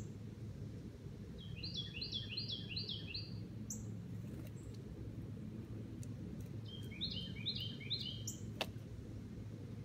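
A songbird singing two short phrases of rapid repeated slurred notes, the second about five seconds after the first, with a few sharp high chips and clicks, over a steady low background rumble.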